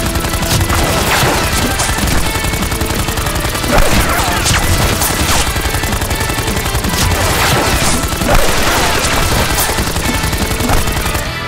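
Large multi-barrelled foam-dart blaster firing rapidly and without a break, a dense rattle of shots and impacts.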